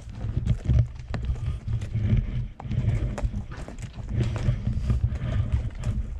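Horse walking, its hooves clip-clopping in an uneven rhythm: sharp clicks over repeated low thuds.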